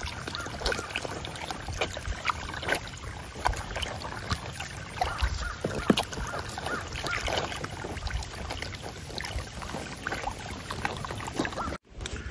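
Pigs splashing and sloshing in a muddy wallow while a garden hose runs water into it, with many small irregular splashes over a steady trickle; a brief dropout near the end.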